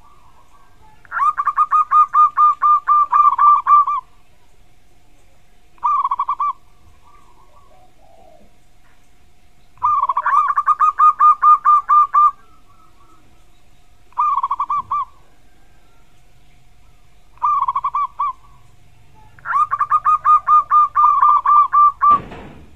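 Zebra dove (perkutut) singing its 'kuk' song: six phrases of rapid, evenly pulsed cooing notes, three long runs lasting two to three seconds each and three short ones between them. A brief thump comes just before the end.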